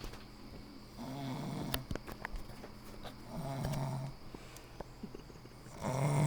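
A woman snoring in her sleep: three low-pitched snores, each under a second long, coming about two and a half seconds apart.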